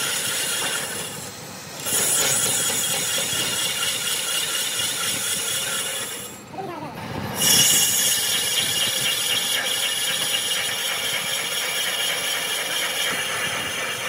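Metal lathe turning a cast-iron car brake disc, the cutting tool shearing off iron chips with a steady harsh metallic scraping. The noise drops away briefly twice, about a second and a half in and again around six to seven seconds, then comes back at full level.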